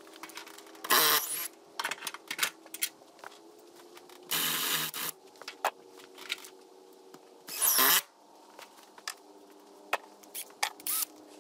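Power drill with a 5/8-inch spade bit run in three short bursts of about half a second each, countersinking proud screw heads, with scattered clicks and knocks between the bursts.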